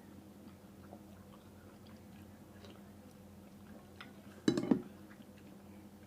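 Someone eating boat noodles: soft chewing and small mouth sounds, with one short loud burst of eating noise about four and a half seconds in.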